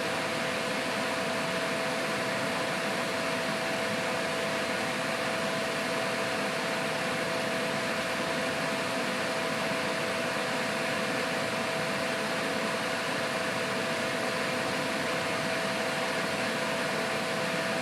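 Steady hum and hiss of a running fan, with two constant tones.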